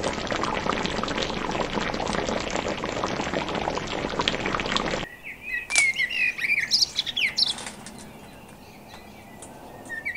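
Chicken pieces and bell peppers sizzling and crackling in a pan, cutting off abruptly about halfway through. Then birds chirping in short, high calls that bend up and down, over a faint background.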